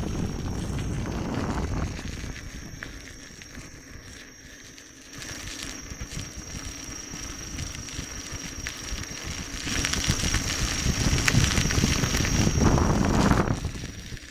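Gotway MSuper3 electric unicycle being ridden on a gravel path: its tyre rolls over the gravel, mixed with wind rushing over the microphone. The noise eases off for a few seconds and swells again, louder, near the end, before dropping away.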